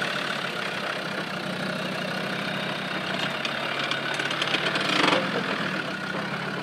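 Off-road Land Rover Defender's engine running steadily at low revs as the truck crawls over rough ground. From about three and a half seconds in, a crackle of brush and plants brushing and snapping joins it, loudest around five seconds.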